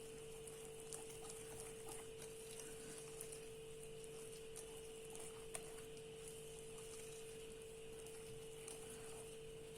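Quiet room tone: a faint steady hum with a few soft scattered clicks, one a little sharper about five and a half seconds in.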